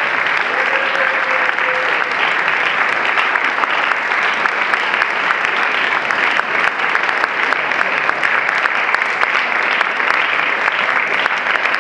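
An audience applauding steadily, a thick patter of many hands clapping at once.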